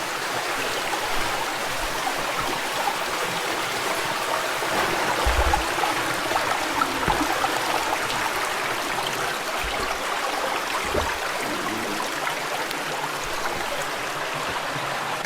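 Creek water flowing steadily through a cave, with a few faint low thumps about five and ten seconds in.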